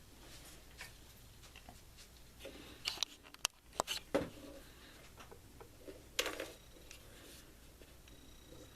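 Small hand tools and metal hardware being handled: a few sharp clicks and taps about three to four seconds in, and a short clatter a little after six seconds.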